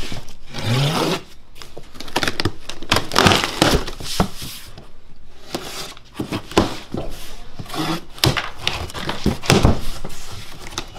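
A cardboard box being slit open and handled: packing tape cut with a knife, the cardboard flaps scraping, creaking and flapping, with many sharp irregular rustles and knocks.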